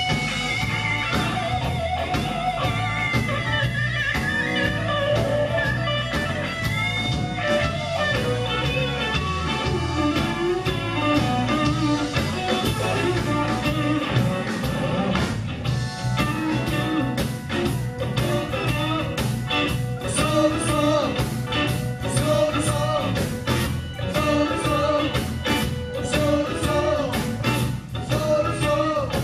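Live blues-rock band playing: electric guitar lead with bent notes over bass and drums, with the drums hitting harder through the second half.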